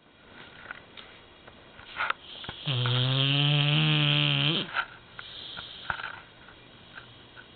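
American Bulldog snoring in its sleep: one long, loud, low-pitched snore of about two seconds near the middle, with softer rasping breaths before and after it.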